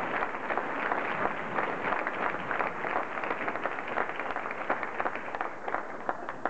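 Audience applauding: many quick overlapping claps that thin out and fade near the end.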